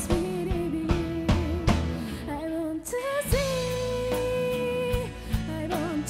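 Live rock band: a female lead vocal over electric guitar, bass and drum kit, with steady drum beats through the first half. About three seconds in, the singer holds one long note for nearly two seconds over the band while the drum hits thin out.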